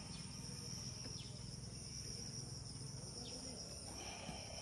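Insects trilling steadily at a high pitch, with a faint low hum underneath and a few light clicks.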